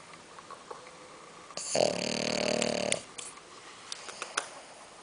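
A sleeping pet snoring: one long, loud snore lasting about a second, starting near the middle, with quieter breathing around it and a few faint ticks after it.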